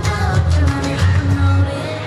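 K-pop girl-group dance song with female singing over a pulsing bass beat. The bass beat drops out near the end.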